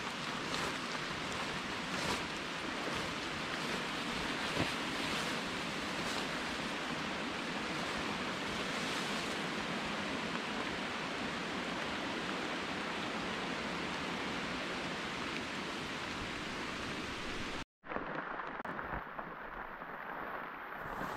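Steady hiss of rain falling on wet forest foliage, a few faint brushing clicks mixed in. About three-quarters of the way through it cuts out for an instant, then returns duller.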